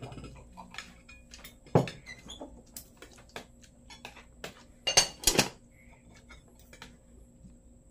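Spoons and forks clinking and scraping on plates and bowls while eating, a scatter of small clicks with a few sharper clinks about two seconds in and again about five seconds in.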